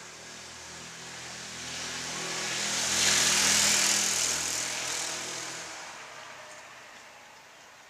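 A car driving past on the street, its engine and tyre noise building to a peak about three seconds in and then fading away.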